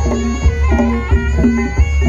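Javanese barongan accompaniment music: a wailing reed-pipe melody with bending, held notes over steady drum strokes, played loud.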